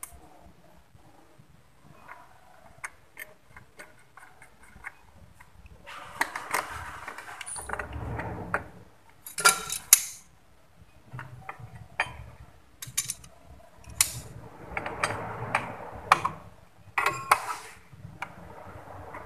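Hand tools and metal scooter parts clicking and clanking: a socket on an extension bar and a wrench worked on the CVT drive pulley nut of a Honda Vario 125. The clicks are scattered, with several sharp metal clanks through the middle and later part.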